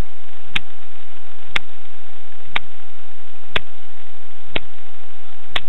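Steady once-a-second ticking, like the quartz movement of the camera watch stepping its second hand, picked up by its own microphone over a constant electronic hiss and a faint whine.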